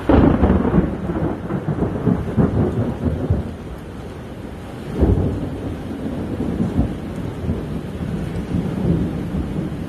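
Thunder: a sudden clap right at the start that rolls and rumbles for a few seconds, then a second peal about five seconds in, rumbling on afterwards.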